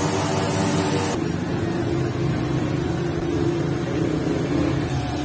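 Steady low mechanical hum with a few level tones. Its character changes abruptly about a second in.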